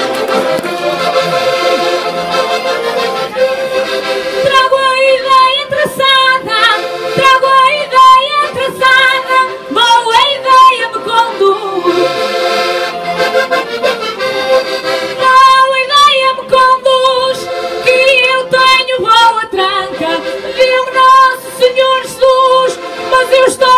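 Two diatonic button accordions playing a quick Portuguese folk melody over a steady held note, in the instrumental passage of a desgarrada.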